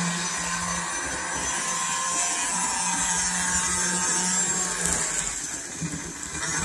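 Walthers model diesel locomotive running steadily along the track, its small electric motor and gearing whirring.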